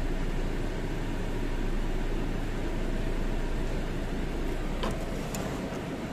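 Steady low hum and hiss of running machinery, with one sharp metallic click about five seconds in and a few faint ticks after it.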